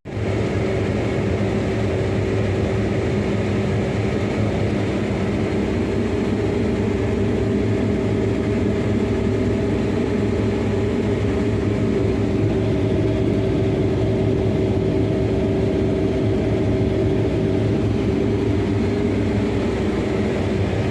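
New Holland CR7.90 Revelation combine running steadily while harvesting soybeans: a constant engine and threshing-machinery drone with a steady hum, unchanging in pitch.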